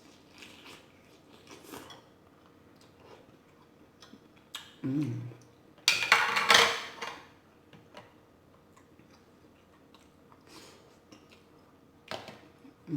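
Close-up eating of a green-lip mussel loaded with rice and sauce: scattered soft clicks and taps of shell and utensils, with a loud, noisy burst lasting about a second around six seconds in and a shorter one near the end.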